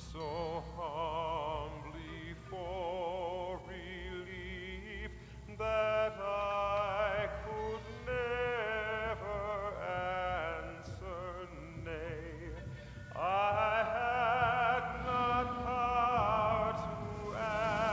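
Film score: a high solo voice singing long, operatic notes with wide vibrato over a low steady drone, rising with a swoop into a louder passage about two-thirds of the way through.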